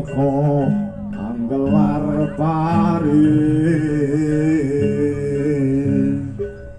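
Javanese gamelan music with a singer holding a long, wavering vocal line over the steady struck tones of the metal percussion.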